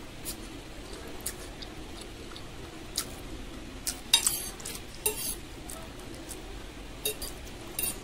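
Metal fork scraping and clinking against a plate while gathering noodles, a few short sharp scrapes, the loudest about four seconds in, another about a second later and more near the end.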